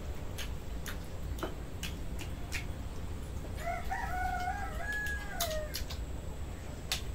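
A rooster crows once, a single call of about two seconds starting around the middle that falls away at the end. Scattered light clicks and taps can be heard throughout.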